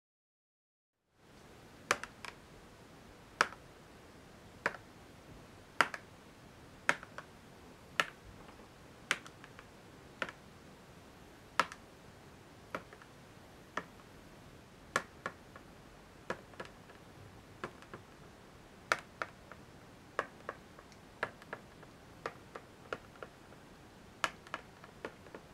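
Sharp single ticks about once a second, many followed by a fainter second tick, over a faint hiss. They start after a moment of dead silence and come less evenly near the end.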